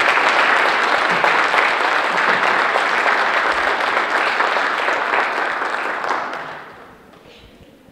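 Audience applauding, fading out about six to seven seconds in.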